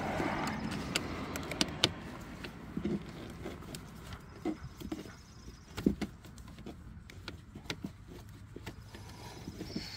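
Scattered clicks and a few short, light knocks of hands and tools working a 2015 Hyundai Sonata's dashboard trim panel loose while its fasteners are undone.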